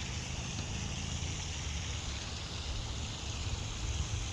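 Steady outdoor background noise: a low, uneven rumble of wind on the microphone under a faint hiss.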